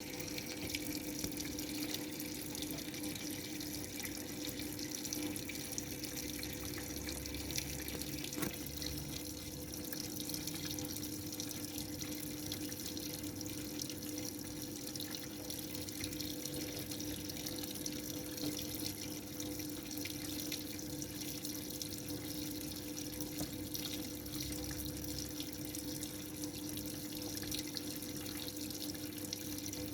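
Washing machine filling with water: a steady rush of running water with a steady low hum underneath.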